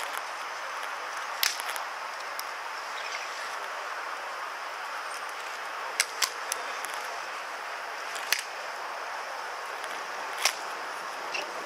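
Hobnailed ceremonial shoes of Evzones guards clacking on marble paving as they march in slow step. A few sharp clacks come a second or more apart, sometimes in a quick pair, over steady background noise.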